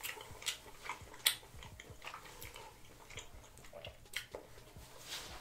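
Close-miked chewing of a sauce-dipped bite of crawfish, with scattered sharp wet clicks and smacks from the mouth; the loudest come about a second in and again near four seconds.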